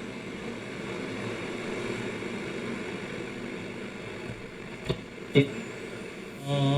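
Shortwave static hiss from the Bush VHF64 valve radio's loudspeaker while it is between stations, with two sharp crackles about five seconds in. Near the end a broadcast voice comes through as a station is tuned in.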